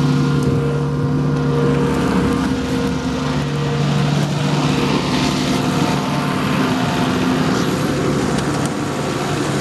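Case MXM 175 tractor's diesel engine running steadily under load while ploughing.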